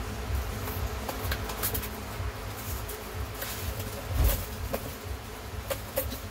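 A steady low drone with scattered light clicks and knocks of handling, the loudest knock a little past the middle.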